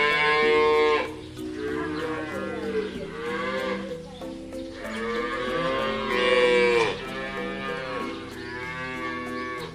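Cattle mooing: about five long moos one after another, the loudest about two-thirds of the way through, over background music.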